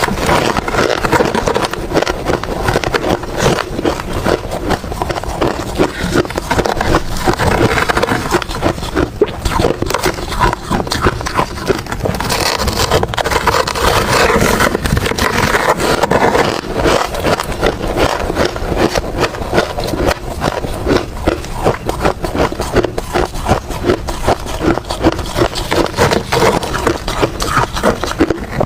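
Ice being bitten and crunched between the teeth: rapid, loud, continuous crunching and crackling with no pause.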